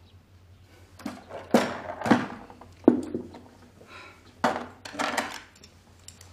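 Porcelain dishes and a teacup set down on a wooden table, about six sharp knocks and clinks.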